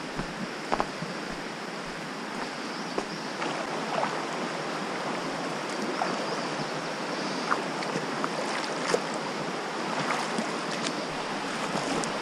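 Creek water rushing steadily, growing a little louder, with scattered light clicks and taps.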